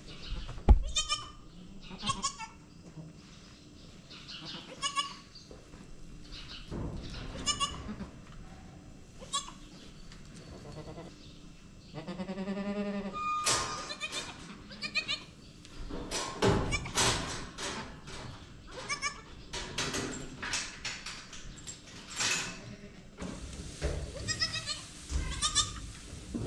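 Goats bleating: many short, high calls repeating and overlapping, with one lower, drawn-out call about twelve seconds in. A single thump about a second in is the loudest sound.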